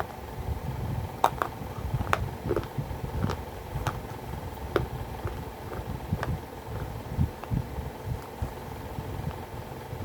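Chewing of hard baked-clay matki pieces: irregular sharp crunches and cracks, about seven in all and thinning out after the first five seconds, over a steady low chewing sound, with a faint steady hum underneath.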